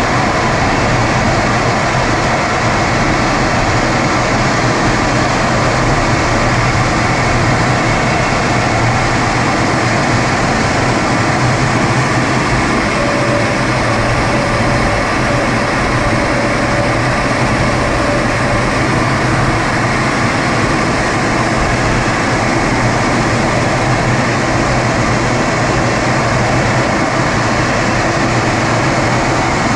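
Steady cockpit noise of a MiG-23UB jet trainer in flight: its jet engine and the airflow over the canopy, an even rumble and hiss. A faint higher tone comes in for a few seconds in the middle.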